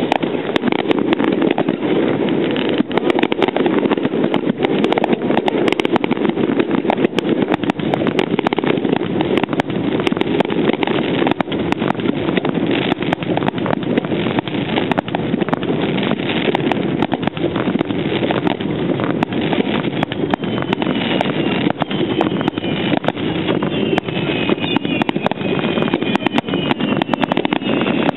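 Fireworks display with a Niagara-falls curtain of sparks and aerial shells: a steady dense roar full of constant crackling. In the last third several high whistles sound together, slowly falling in pitch.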